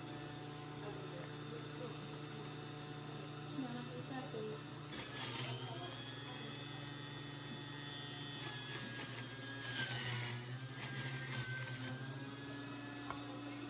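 Electric centrifugal juice extractor running, a steady motor hum. About five seconds in and again around ten seconds in, louder, noisier stretches rise over the hum.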